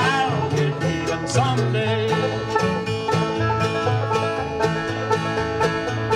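Live bluegrass string band playing: five-string banjo picking over upright bass, mandolin and acoustic guitar, with a steady, even beat.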